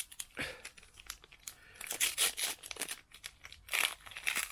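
Plastic wrapper of a Match Attax trading-card pack being torn open and crinkled in the hands, a run of irregular rustles and tears.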